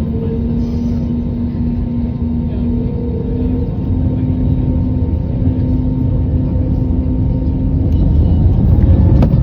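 Jet airliner engines running with a dense low rumble and a steady hum, growing louder about eight seconds in.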